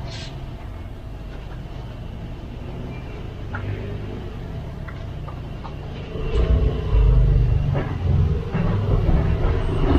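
A low, uneven rumble that grows heavier about six seconds in, over the soft rubbing of a cloth polishing a plastic headlight lens by hand with rubbing compound.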